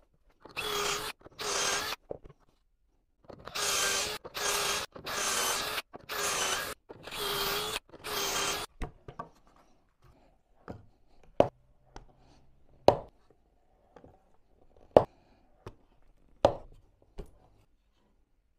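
Cordless drill running a pocket-hole bit into plywood ribs held in a pocket-hole jig: about ten short bursts of about half a second each, the motor's pitch dipping as each bit bites. From about nine seconds in the drilling stops and sharp wooden knocks follow as the workpieces are handled and set down.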